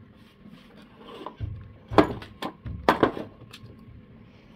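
Handling sounds on a wooden tabletop: rubbing and low bumps, with two sharp knocks about two and three seconds in.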